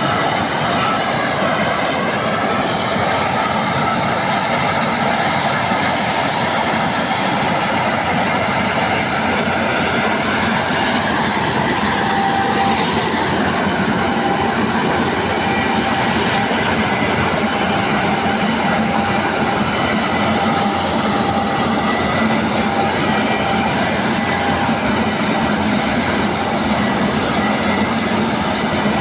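Combine harvester running steadily under working load: a continuous, even machine noise with faint steady whining tones.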